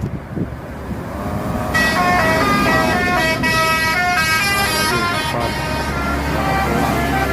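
Bus telolet horn, a Basuri multi-tone musical horn, playing a quick tune of stepped notes, several sounding at once. It starts about two seconds in, after vehicle noise.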